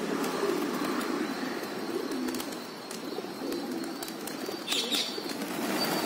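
A flock of rock pigeons cooing, with many low coos overlapping into a steady murmur. A brief higher chirp comes near the end.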